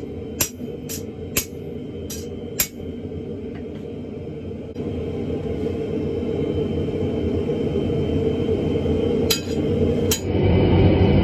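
Sharp metallic hammer strikes, about two a second for the first few seconds and two more near the end, over a steady low roar that grows louder partway through.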